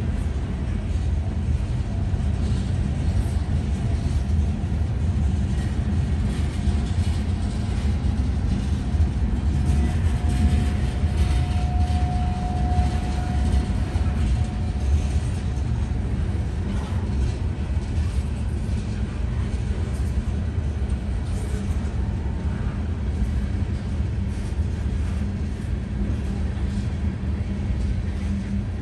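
Norfolk Southern freight train of covered hopper cars rolling through a grade crossing: a steady low rumble and clatter of steel wheels on the rails. A faint steady squeal is heard for several seconds in the middle.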